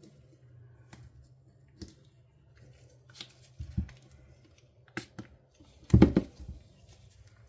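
Handling noise from a silicone mold and a cured resin piece being worked loose: scattered small clicks, rubs and knocks, with the loudest knocks about five and six seconds in.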